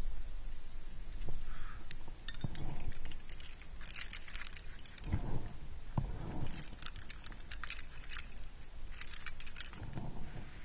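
A climbing rack of aluminium carabiners and quickdraws on a harness jingling and clinking in bursts as the climber moves up the rock, with a few dull scuffs of movement in between.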